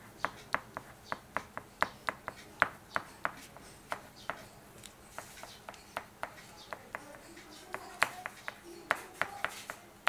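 Green pastel crayon hatched over paper in quick short strokes, each stroke a sharp tick, about two to three a second, with a lull in the middle before the strokes come thick again near the end.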